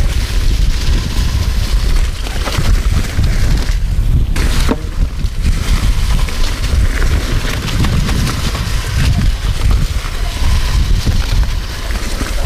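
A mountain bike descending a dirt trail covered in dry leaves: tyres crunching through leaves and loam, with small clicks and rattles from the bike, under heavy wind buffeting on a chest-mounted camera microphone.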